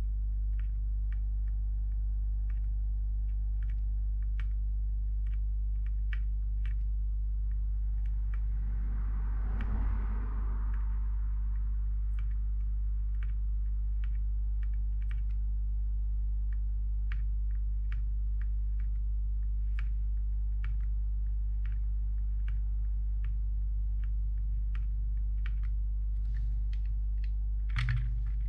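Steady low electrical hum with a thin steady tone above it, and a run of small sharp ticks, about two a second, like light tapping. A short rustling scrape comes about ten seconds in, and a louder knock near the end.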